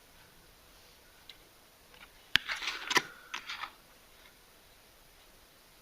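A sharp tap, then about a second and a half of irregular crinkling as a plastic ration packet is handled, starting a little over two seconds in.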